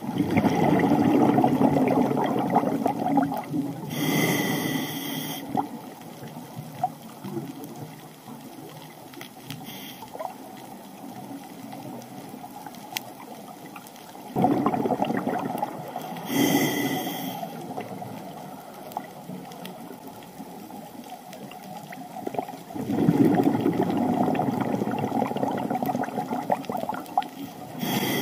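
Scuba diver breathing through a regulator underwater: three long bursts of exhaled bubbles, each followed by a short hissing inhale through the regulator.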